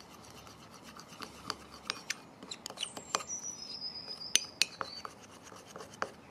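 Metal teaspoon stirring and scraping in a small china cup, with irregular light clinks against the cup's sides as milk paint powder and warm water are worked into a smooth paste and the lumps are stirred out.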